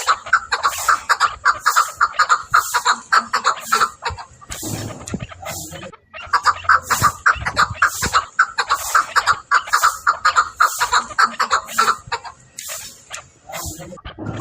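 Chukar partridge calling: rapid, repeated clucking chuck notes in long bouts, with a lull about four seconds in and another near the end.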